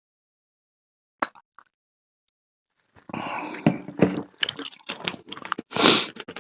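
A person eating cheese-topped fruit salad close to the microphone. There is a single click about a second in, then from about three seconds in continuous wet chewing and smacking with many small clicks, and two loud bursts of mouth noise near the end.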